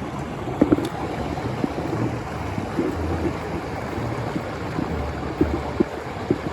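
Steady rushing water, with scattered short low knocks.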